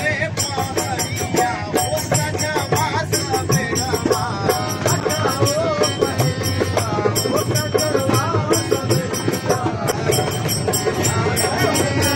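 Live bhajan music: a keyboard melody over a steady beat of hand percussion.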